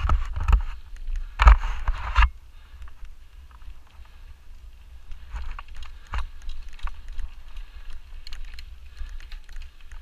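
Mountain bike rattling over a rough dirt trail: the chain and frame clatter with each bump over a low rumble. There are two heavy bursts of clatter in the first two seconds, then lighter, scattered knocks.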